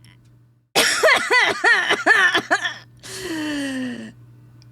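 A woman laughing in a quick run of high, rising-and-falling giggles for about two seconds, then one long drawn-out note sliding down in pitch. A faint steady low hum sits underneath.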